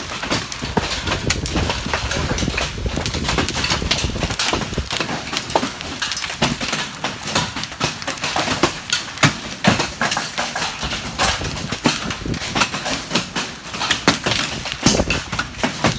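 Hail storm: hailstones pelting down in a dense, irregular clatter of sharp hits on the concrete slab and the metal barn, over a constant rush of falling hail.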